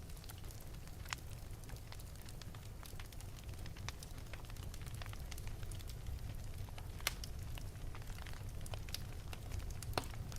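Wood fire burning in an open fireplace: a steady low rumble of flames with scattered crackles and pops. The sharpest pops come about seven seconds in and near the end.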